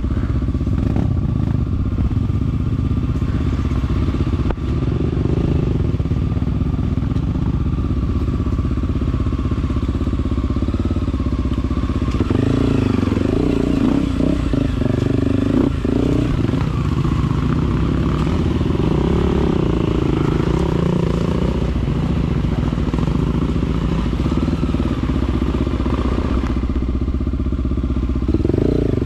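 Off-road dirt bike engine being ridden, running steadily at first and then rising and falling with the throttle for several seconds in the middle, with a few sharp knocks.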